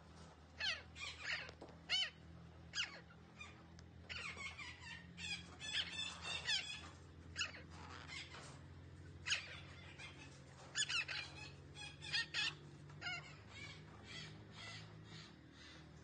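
Red-breasted parakeet calling: short, sharp calls that sweep down in pitch, some single and some in quick runs, growing fainter near the end. A steady low hum runs underneath.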